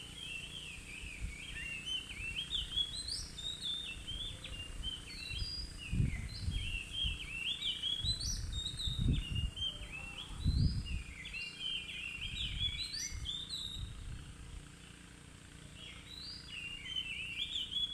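Oriental magpie-robin (kacer) in full song: a long run of quick, varied whistled phrases with a short pause near the end before it starts again. A few low thumps sound in the middle.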